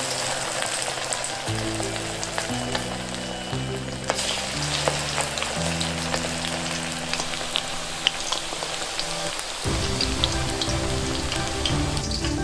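Starch-coated chicken pieces deep-frying in hot oil: a steady sizzle with many small crackles and pops. Background music plays underneath.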